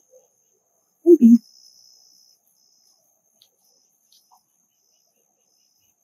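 Insects trilling with a faint, steady, high-pitched tone, joined about a second in by a second, slightly lower trill that fades out after a couple of seconds. A brief murmur of a voice about a second in is the loudest sound.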